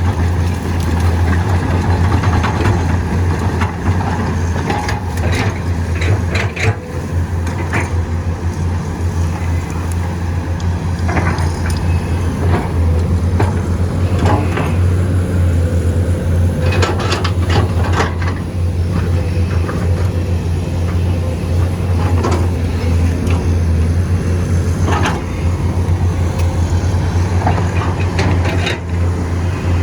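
Excavator's diesel engine running steadily under load, with scattered sharp metallic clanks.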